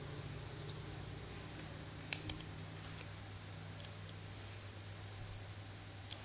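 Plastic drinking straws folded and wound by hand, giving a few scattered sharp clicks, the loudest a little past two seconds in, over a steady low hum.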